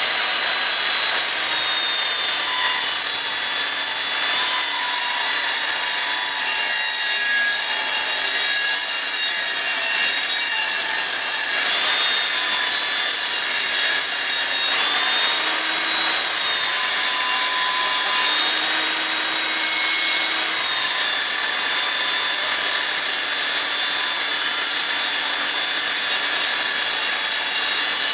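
Evolution Rage 5-S table saw's 255 mm blade rip-cutting a length of timber along the grain: a steady, loud high whine and rasp of cutting. The whine's pitch dips briefly now and then as the blade takes load.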